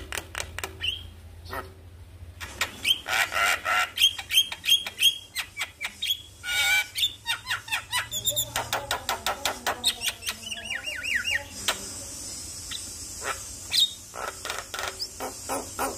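Javan myna singing a varied, chattering song: fast runs of sharp clicks, harsh squawks, and a few short falling whistles.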